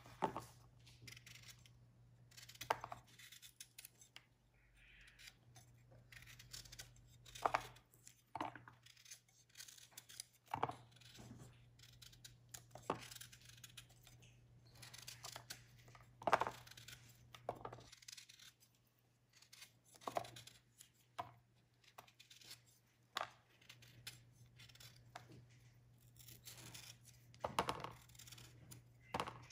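Kitchen knife paring the skin off a raw green mango: short, irregular scraping strokes of the blade through the peel, every second or two. A faint steady low hum runs underneath.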